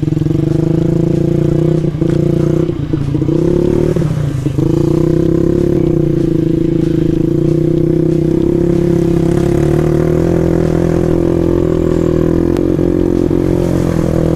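Trail motorcycle engine with an aftermarket Norifumi exhaust running under throttle while riding. The engine note drops briefly three times in the first few seconds, then holds steady.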